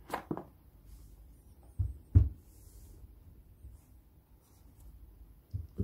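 Cardboard OnePlus 8 Pro retail box being handled and set down on a carpeted floor: a few dull knocks and thumps. There are two at the start, a pair about two seconds in (the second one the loudest), and another pair near the end.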